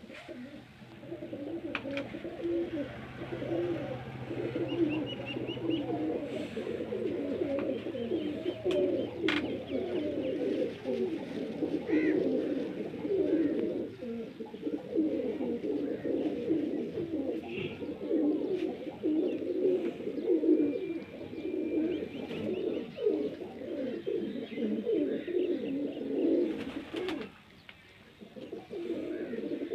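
Pigeons cooing continuously, several voices overlapping, with a brief lull near the end.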